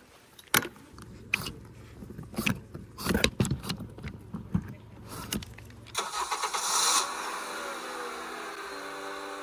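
Irregular clicks, knocks and rattles of an NRS Kuda inflatable kayak's deck fittings and seat bracket being handled and packed up, over a low steady hum. About six seconds in this gives way to a brief rush of noise and then music with held notes.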